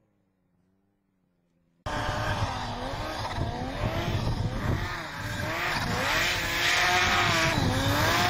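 Snowmobile engine revving up and down under changing throttle. It cuts in suddenly about two seconds in, after near silence.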